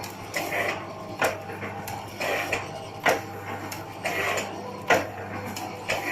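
Automatic four-side-seal sachet filling machine with a mechanical piston filler running while packing orange juice. It works in a steady cycle about every two seconds, each with a sharp clack and a short hiss over a steady hum.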